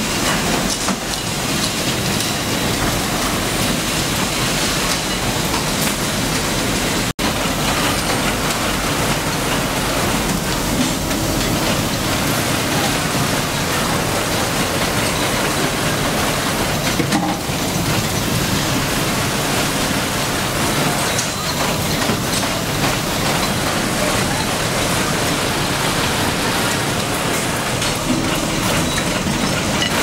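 Steady din of machinery on a motor stator production floor, a dense mechanical hiss and clatter. It cuts out for an instant about seven seconds in.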